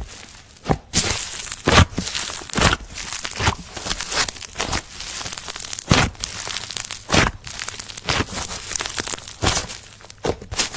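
Slime being squeezed and pulled by hand, crackling and tearing, with a sharp pop about once a second.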